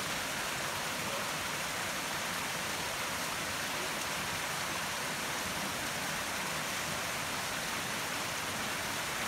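Steady rush of a nearby river flowing, an even noise that holds unchanged throughout.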